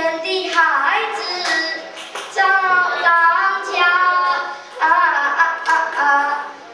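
A young boy singing solo in a child's voice, holding steady notes in short phrases with brief pauses for breath between them.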